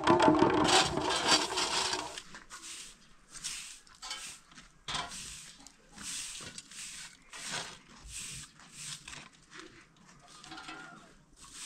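A short-bristled straw broom sweeping hard-packed dirt ground in short, dry swishing strokes, about one a second. A ringing sound dies away over the first two seconds.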